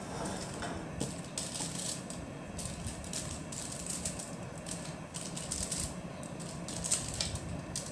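Aluminium foil crinkling and crackling in irregular bursts as raw bacon strips are handled and laid out on a foil-lined tray.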